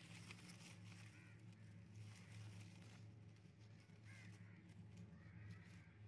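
Faint crows cawing a few times in the distance over a low steady hum, with light rustling and clicks.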